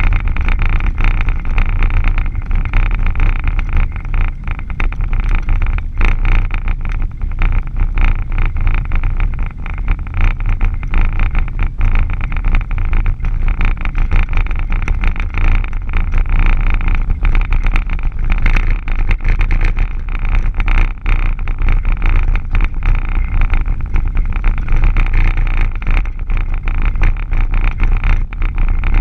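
Vehicle driving on a gravel road, heard from inside the cab: steady engine and tyre noise with a deep rumble and frequent small knocks and rattles.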